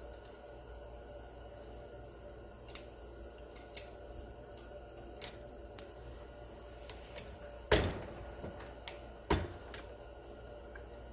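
Small clicks of a brass case and bullet being set into the shell holder of an RCBS single-stage reloading press, then two loud metal clunks about a second and a half apart as the press is worked through a stroke.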